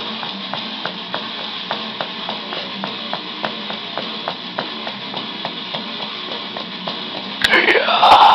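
Rock music with guitar: a quieter passage with a regular tick about three times a second, then loud guitar with bending, sliding notes comes in near the end.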